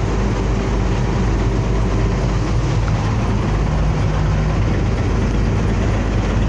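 Bizon Rekord Z058 combine harvester running steadily under load while harvesting rapeseed: a low diesel engine drone with the even rushing clatter of the threshing machinery, heard from inside the cab.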